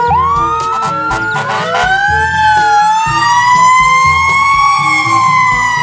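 Fire-engine siren wailing, its pitch sliding slowly up and down in overlapping tones, over background music with a steady beat.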